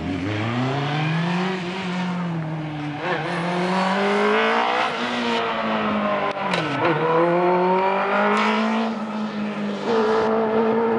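Race car engine of a red vintage-style coupe on an autocross course, driven hard. The revs rise and fall repeatedly as it accelerates and lifts between cones, with a deep drop about seven seconds in before it pulls steadily again.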